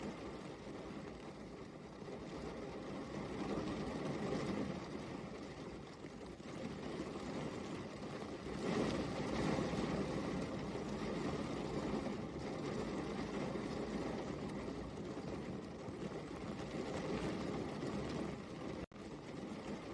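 Steady rain, an even, dense patter with a low rumble, swelling a little about halfway through. It cuts out for an instant near the end.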